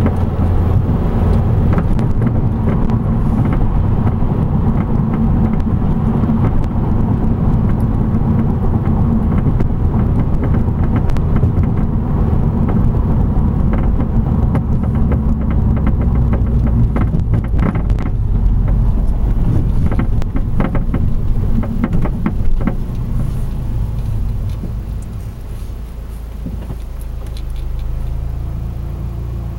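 Car with lowering springs driving, with a steady low road and suspension rumble. Many short clicks and knocks come from the spring and strut area, most of them in the middle of the stretch. The car settles quieter near the end.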